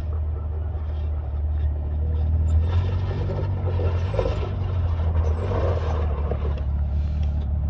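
A pickup truck's engine runs with a steady low rumble as the truck creeps down a steep dirt slope. Through the middle few seconds it grows louder and rougher, with a thin high squeal that comes and goes.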